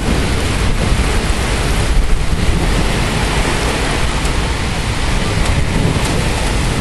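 Heavy rain pouring down steadily in a thunderstorm, with a continuous low rumble underneath.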